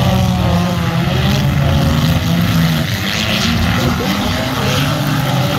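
Several demolition derby compact cars' engines running loud together, revving up and down as they spin their wheels and push in the dirt arena.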